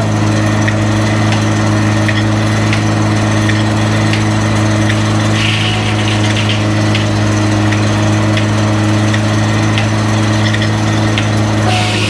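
Allis-Chalmers tractor engine running at a steady speed, belt-driving an antique Farquhar sawmill whose 52-inch circular blade spins without cutting. The hum holds one pitch throughout, with a faint, regular tick.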